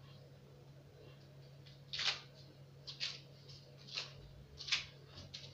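Footsteps of knee-high boots on a hard kitchen floor as the wearer turns on the spot: short tapping scuffs about once a second, starting about two seconds in. A faint steady low hum runs underneath.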